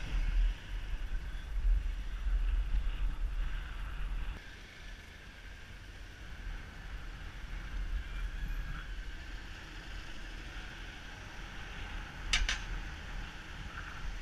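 Wind buffeting a helmet camera's microphone while cycling in traffic, a steady low rumble with road noise, dropping in level about four seconds in. A brief high-pitched ring sounds near the end.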